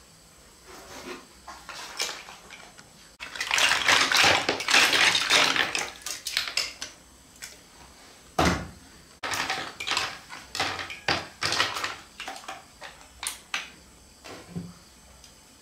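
Boiled apple snails in their shells and a metal ladle clattering against a cooking pot and dishes: scattered knocks, a dense rattling from about three to six seconds in, and one heavy thump past the middle.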